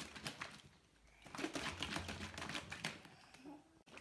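Rapid light clicking and tapping, with a short pause about a second in.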